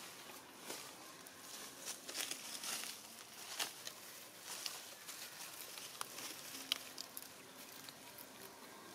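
Dry leaf litter rustling and twigs crackling under monkeys moving over the forest floor: faint, irregular crunches with a few sharper snaps.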